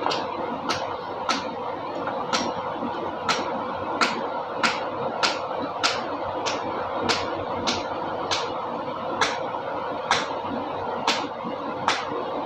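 2014 Kia Optima engine running with a sharp, regular knock, a little more than once a second, over a steady hum.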